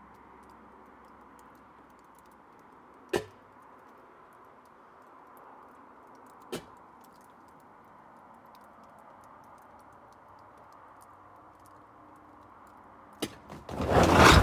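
Meltwater dripping from icicles on a snow-laden roof edge: two single sharp drips about three and a half seconds apart over a faint steady hiss. Near the end a short click is followed by a loud rough burst of noise lasting about a second.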